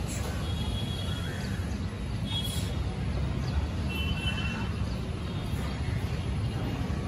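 Steady low rumble of outdoor urban ambience, with a few short, faint high chirps.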